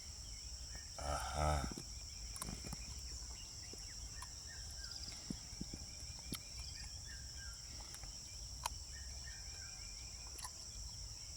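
Steady high-pitched insect chorus, with short repeated chirps and a few sharp clicks scattered through it.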